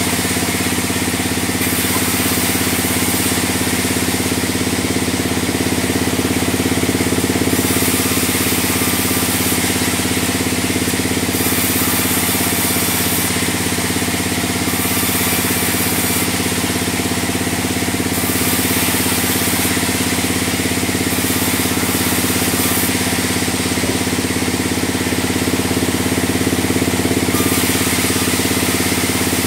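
A band sawmill running steadily: a constant machine hum, with a hiss in the highs that swells and fades every second or two.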